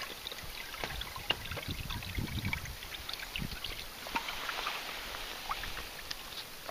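Water lapping and trickling against the hull of a sailing canoe under way, with many small irregular splashes and plinks and a few low bumps about two seconds in.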